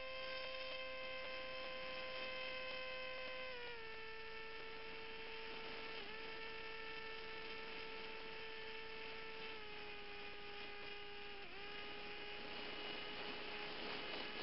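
An RC flying wing's motor and propeller heard from the onboard camera: a steady high tone that has just spun up. It drops in pitch in steps, about four seconds in and again near ten seconds, with brief dips around six and eleven and a half seconds, as the throttle is eased back.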